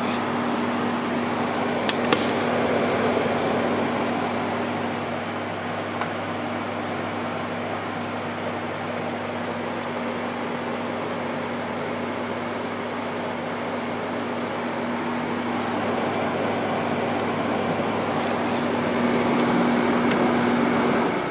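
5000 BTU Haier window air conditioner running on max cool with its fan on low: the compressor's steady hum under the rush of air from the fan.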